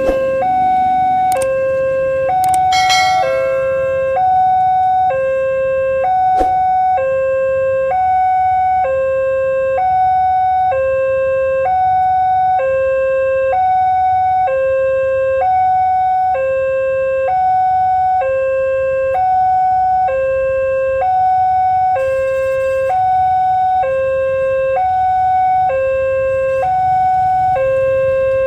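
Electronic two-tone warning alarm of an Indonesian railway level crossing, switching steadily between a higher and a lower tone about once a second. A few short clicks sound in the first few seconds.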